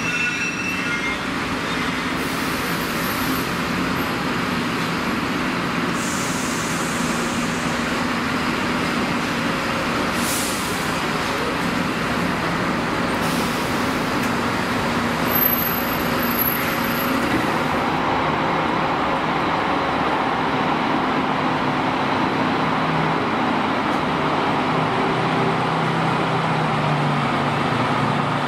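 Bus engines running steadily, with a few short hisses of air and an engine note that rises near the end.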